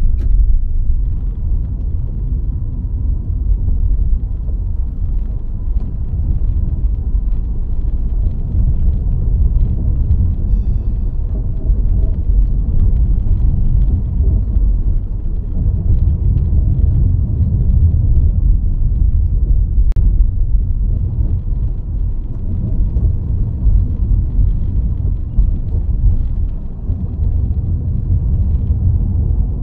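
Steady low rumble of a car driving along the road: engine and tyre noise, with a single sharp click about two-thirds of the way through.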